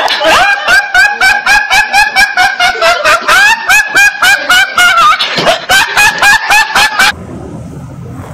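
A young man laughing uncontrollably in rapid, high-pitched, squealing bursts, about three or four a second. The laughter cuts off abruptly about seven seconds in, giving way to a low steady hum.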